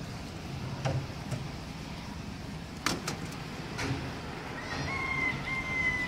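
Concrete mixer machine's engine running with a steady low hum on a building site, with a few sharp knocks scattered through the first four seconds. Near the end a high, steady whistling tone rises in and holds for about a second and a half.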